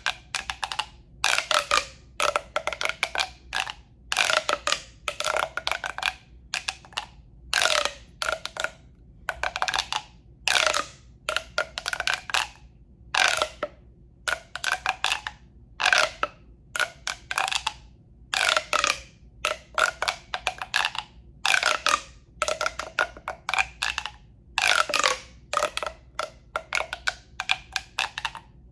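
ASMR sounds made with a tube: short, hollow, resonant sounds repeated about once a second, some in quick clusters. Each has a ringing tube tone that bends in pitch.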